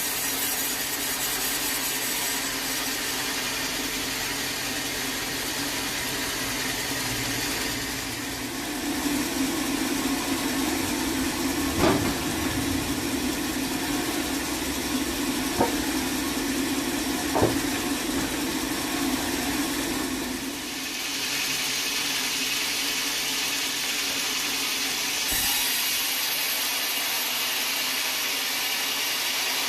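Sawmill machinery running steadily. In the middle stretch a louder low hum comes in for about twelve seconds, with three sharp knocks, before the noise settles back to the steady running.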